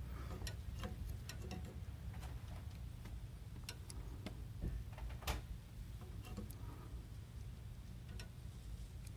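Scattered, irregular small clicks and taps of a tiny square nut and fingers fumbling against a 3D printer hotend's heat sink while the nut is worked back into its slot, with one sharper click about five seconds in, over a low steady hum.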